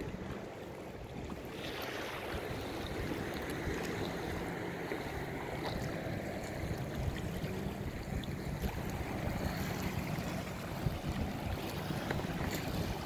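Small waves lapping and sloshing around a plastic kayak on open sea, with wind rumbling on the microphone.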